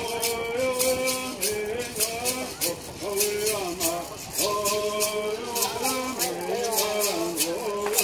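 Bird Song: singers chanting together, their melody rising and falling, over gourd rattles shaken in a steady, even beat.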